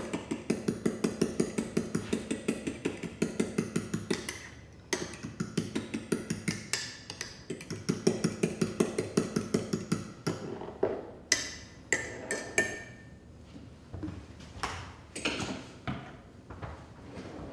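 A fork whisking maple syrup and Dijon mustard in a small glass measuring cup, clinking against the glass about four times a second, with a short pause about four seconds in. After about ten seconds the whisking stops and a few separate clinks and knocks follow.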